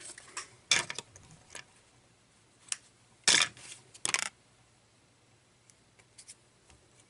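Hands handling a length of yellow chenille at a fly-tying vise, making short sharp rasping and snipping sounds. There are several in the first second and a half and two louder ones around three to four seconds in, then a few faint ticks.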